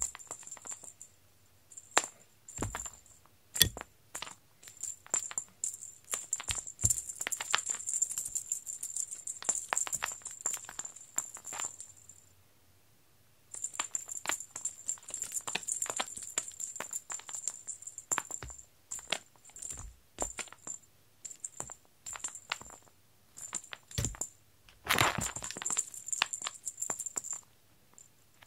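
Feather cat teaser on a wand being flicked and dragged across foam floor mats: a rapid run of light rustles and clicks, stopping for about a second a little before the middle, with a louder scuffle near the end.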